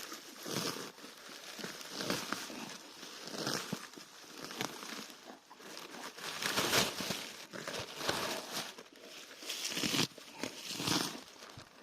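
Grass crunching and tearing in repeated rustling bursts, about one every second or so.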